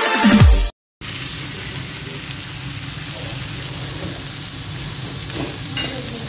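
Chicken frying in hot oil in a square pan, a steady sizzling hiss. It is preceded by the last fraction of a second of electronic dance music, which cuts off abruptly.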